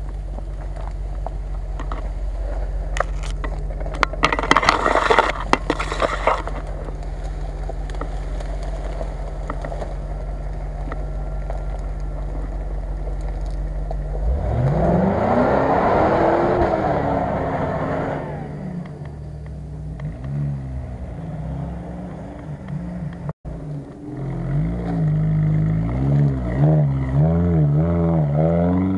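Off-road 4x4 SUV engine running steadily at low revs, with a patch of crackling about four to six seconds in. About halfway through it revs up and back down as the vehicle drives through mud and grass, and near the end it revs up and down quickly several times.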